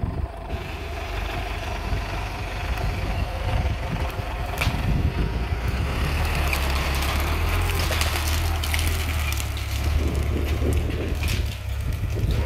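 Case International 845XL tractor's diesel engine working steadily under load as it pulls a pine tree out by the roots. Over the engine come the crackle and snap of roots and branches tearing and dragging through the ground, with sharp cracks about halfway in and more near the end.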